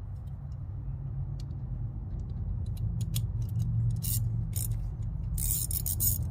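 Small metal clicks and clinks of a socket, drive adapter and ratchet being handled and fitted together, with a quick run of clicks near the end, over a steady low hum.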